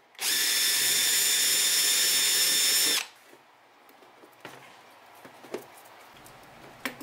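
Power drill running steadily with a high whine for about three seconds, its bit enlarging a too-small hole in the wall of an ammo box, then stopping. A few faint clicks follow.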